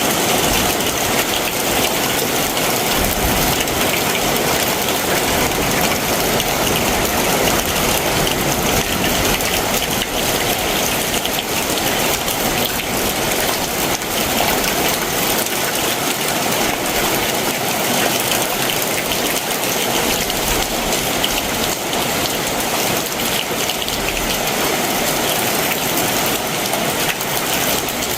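Heavy summer monsoon downpour, a steady dense hiss of rain falling and pattering on surfaces.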